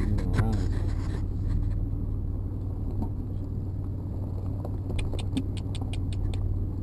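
A vehicle engine running with a steady low rumble. A quick run of light clicks comes about five seconds in.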